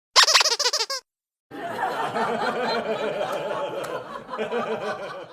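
Laughter sound effect: a short, high-pitched burst of laughing that lasts under a second, then a crowd laughing together for about four seconds, as in a sitcom laugh track.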